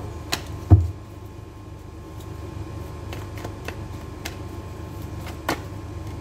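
Tarot deck being shuffled by hand: scattered light card clicks and taps, with one louder thump under a second in, over a steady low hum.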